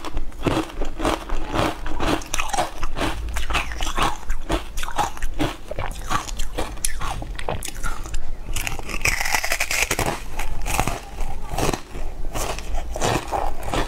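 Close-miked eating sounds: biting and chewing a matcha-powder-dusted dessert, a dense, irregular run of sharp mouth clicks and chews.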